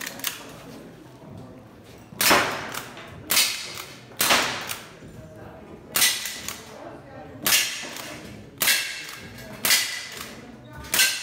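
An air-powered lever-action rifle fired eight times, about one shot a second with a short pause after the third. Each sharp crack trails off in the ring of a pellet striking a steel plate target.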